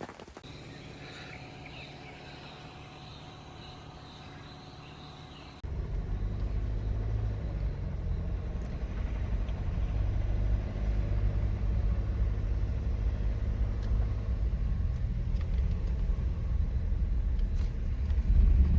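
A vehicle driving, heard as a loud steady low rumble that begins abruptly about five and a half seconds in. Before it comes a quieter stretch with a thin, steady high-pitched tone.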